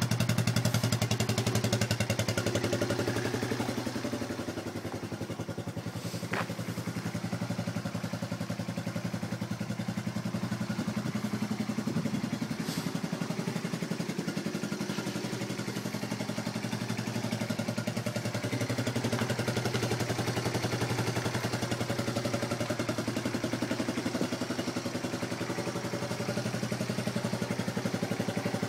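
Honda ATV's single-cylinder engine idling steadily, with an even low putter.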